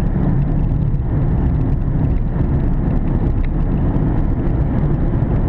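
Steady loud low rumbling noise, even throughout.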